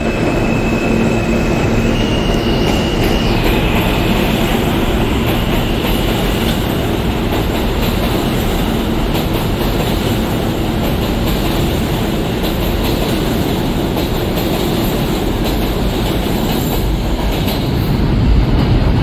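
New York City subway train running along a station platform, a loud, steady rumble of steel wheels on rail. A high wheel squeal sounds over it for the first three seconds or so, stepping up in pitch about two seconds in.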